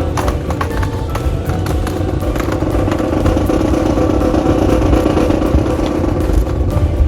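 Drill rifles clacking in scattered sharp knocks as a drill team spins and catches them, over a steady low rumble.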